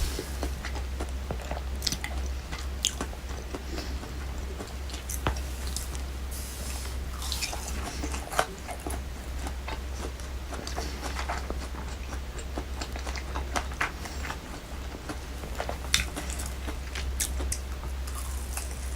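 Close-up eating of fried chicken karaage: biting and chewing, with many short scattered clicks and crunches over a steady low hum.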